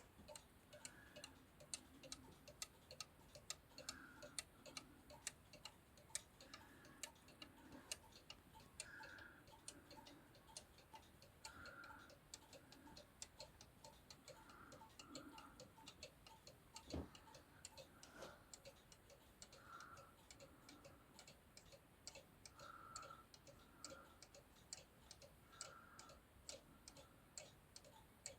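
Cuckoo clock's pendulum movement ticking quietly and evenly, with one louder knock partway through.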